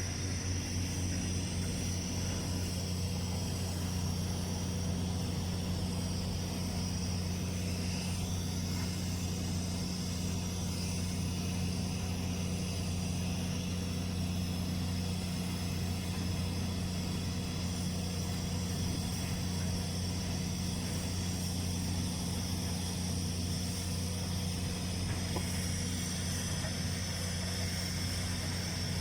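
TIG welding in progress: the arc and welding machine running steadily, a constant low buzzing hum with a thin high hiss over it.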